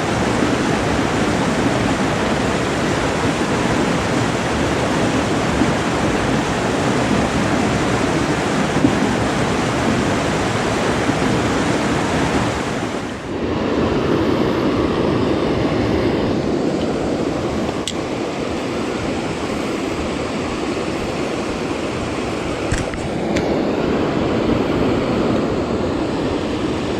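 Kern River water rushing steadily, an even noise with a brief dip about thirteen seconds in.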